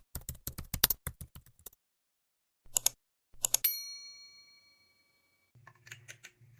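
A quick run of light, sharp clicks, then a pause, a few more clicks, and a single bright chime about three and a half seconds in that rings out and fades over a second or two. A few faint clicks follow near the end.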